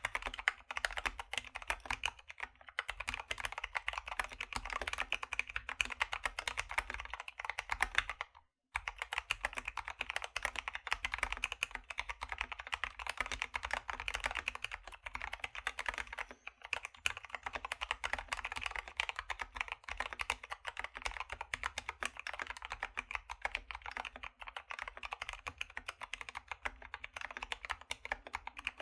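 Steady, fast typing on a Keychron K2 V2 aluminium-body mechanical keyboard fitted with lubed Gateron Brown tactile switches, Drop MT3 keycaps and a foam-filled case: a dense run of key clicks. The sound cuts out completely for a split second about eight seconds in.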